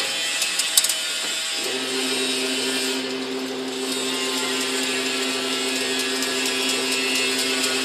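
Automatic chain link fence weaving machine running: a steady motor hum over an even mechanical noise. The hum drops out near the start and comes back about one and a half seconds in, with a few sharp clicks under a second in.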